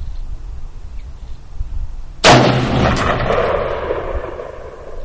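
A single shot from an AR-15-style carbine about two seconds in, followed by a long echoing decay that fades over two to three seconds.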